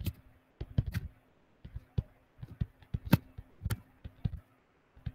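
Stylus tapping and clicking against a tablet or touchscreen while handwriting, a run of irregular light taps, with a faint steady electrical hum underneath.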